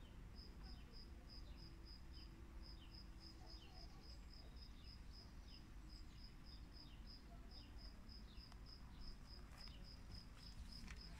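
Faint cricket chirping in a steady, even rhythm, about four chirps a second with a few short pauses, with faint short falling calls in between.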